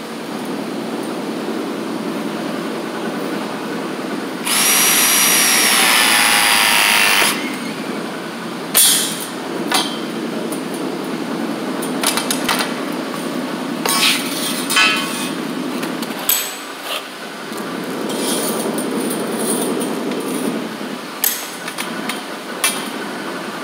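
Cordless ProPress press tool running one press cycle on a copper fitting: a steady motor whine for about three seconds, a few seconds in. After it come a series of sharp metallic clinks and knocks from the copper pipe and fittings.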